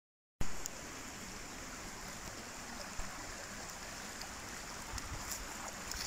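Steady rushing of flowing stream water over rocks, with one faint knock about halfway.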